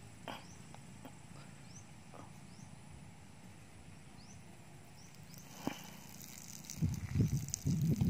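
Quiet rural outdoor ambience with a few faint, short rising chirps and scattered light clicks. In the last second or so, loud low rumbling bursts take over.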